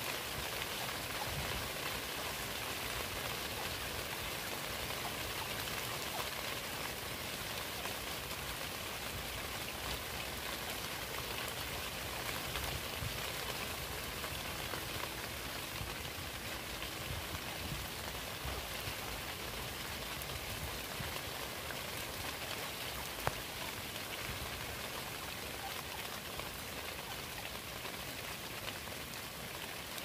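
Steady rain falling, an even hiss and patter with no let-up, and a single sharp click about two-thirds of the way through.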